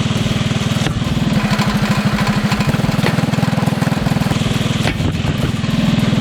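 Small engine of a modified pitching-machine saw blade launcher running steadily with an even, rapid pulse. A few brief sharp knocks sound over it.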